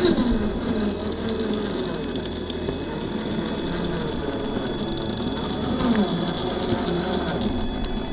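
Traxxas TRX-4 RC rock crawler's electric motor and geared drivetrain whining, the pitch wavering up and down as it crawls, with its tyres crunching and clicking over loose rocks.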